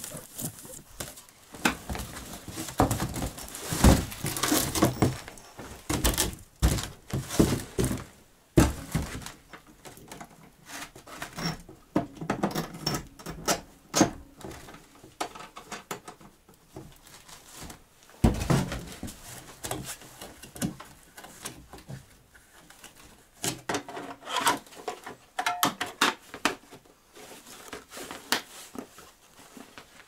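Irregular knocks, thunks and rustling as a Greenworks cordless electric snow shovel is handled, unboxed from its cardboard packaging and put together, with boots stepping on snow and a wooden floor. The shovel's motor is not running.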